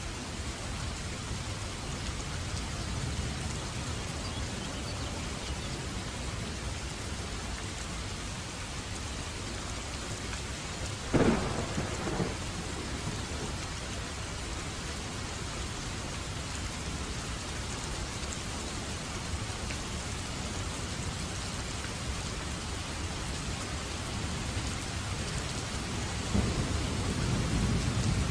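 Steady heavy rain with thunder: a sharp thunderclap about eleven seconds in, and low rumbling thunder building near the end.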